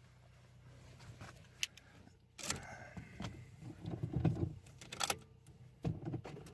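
Scattered clicks and short bursts of rattling and rustling, as of parts being handled, over a steady low hum.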